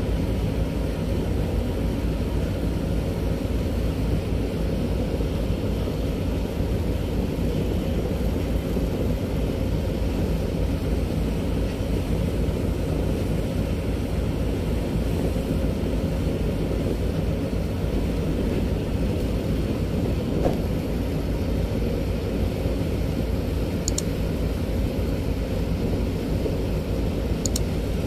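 Steady low rumble of a river boat's engine, with a faint steady hum underneath; two faint high ticks near the end.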